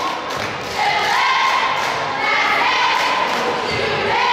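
Several young voices calling out together in drawn-out notes that shift in pitch about once a second, over repeated thuds.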